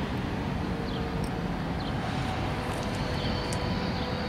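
Steady outdoor background: low rumble of wind on the microphone and distant road traffic, with a faint steady hum under it and a few short, faint high chirps from small birds.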